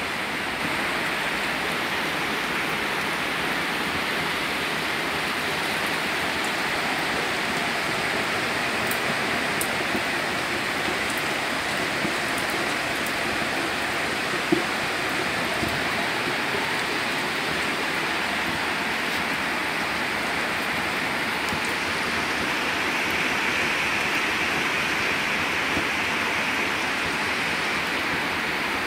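Steady rain falling, with a single sharp tap about halfway through.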